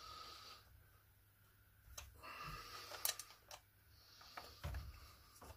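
A few faint clicks and scrapes of a hex driver working at a small screw on an RC car, the tool slipping as the screw head rounds out.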